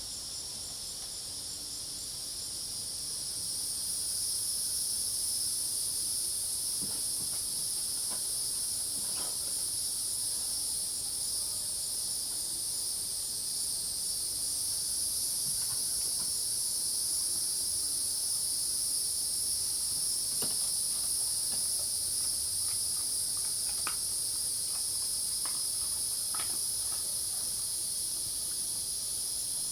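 Night chorus of crickets and cicadas: steady high-pitched trilling with a faster, finely pulsing cricket trill among it. A few faint short calls are scattered through. The chorus fades up over the first few seconds, then holds steady.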